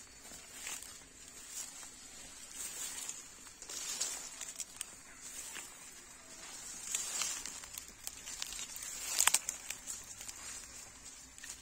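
Grass and dry cane leaves rustling and tearing in irregular crackles, loudest about nine seconds in, over a steady high hiss.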